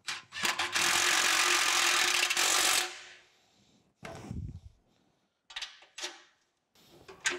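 Cordless drill-driver running steadily for about two and a half seconds, driving in a 1/4-28 bolt to fasten the panel down, then stopping. A thud and a few light knocks and rattles follow as the panel is handled.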